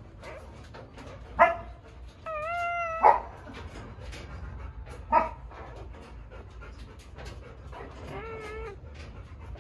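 Dogs in a whelping pen whining and yelping: three short sharp yelps about a second and a half, three and five seconds in, a steady held whine just before the second yelp, and a wavering whine near the end, with quick panting between.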